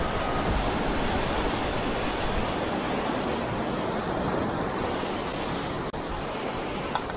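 Rough sea surging and breaking against the rocks at the foot of the cliff: a steady rushing noise whose hiss eases a little about two and a half seconds in.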